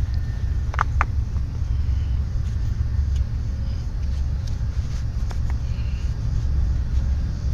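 Steady low outdoor rumble, with two short sharp clicks about a second in and a few fainter ticks as foam ankle weights are handled and strapped on.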